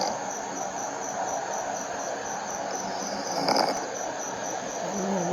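A cat snoring through its nose, a rough breathy noise that swells about three and a half seconds in, with crickets chirping steadily in the background. The nasal snoring is a sign of congested breathing, which the owner puts down to the cat's sporotrichosis.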